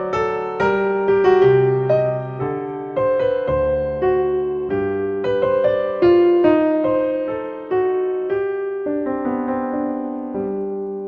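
Piano music: single notes and chords struck one after another and left to ring, dying away near the end.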